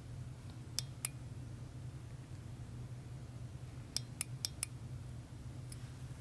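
Small sharp metallic clicks from a handheld metal-bodied red laser pointer being worked: two about a second in, then four in quick succession around four seconds in, over a steady low hum.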